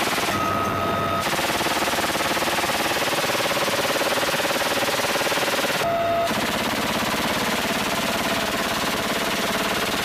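Helicopter door-mounted heavy machine gun firing sustained, fast, continuous bursts. The sound shifts slightly about a second in and again around six seconds.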